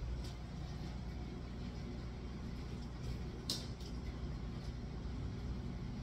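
Steady low hum, with a faint click near the start and a sharper click about three and a half seconds in.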